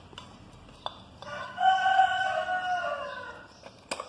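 A rooster crowing once, a single long call of about two seconds that drops slightly in pitch at its end. A couple of short clicks, one just before the crow and one near the end.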